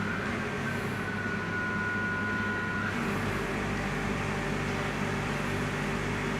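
Beko D5 7101 washing machine on its spin cycle, running with a loud rumbling noise and a high motor whine that holds steady and cuts out about halfway through. The noise comes from the drum bearings, which turn out to have broken up.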